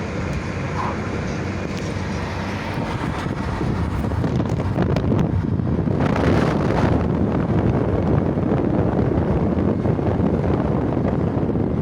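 Wind buffeting the microphone at the seashore: a low, gusty noise that grows louder about four seconds in, strongest around six to seven seconds.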